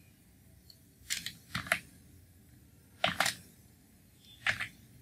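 Computer keyboard keystrokes: a handful of separate clicks, some in quick pairs, with pauses between them.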